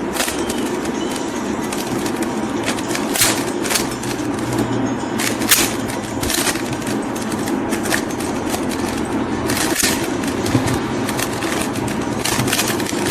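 Plastic Rubik's Cube being turned quickly by hand during a solve: a run of irregular clicks and clacks as the layers snap round, over a steady background hum.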